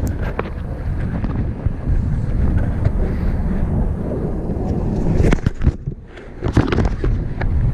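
Wind buffeting the microphone in a steady low rumble, with a few knocks and rustles about five to seven seconds in.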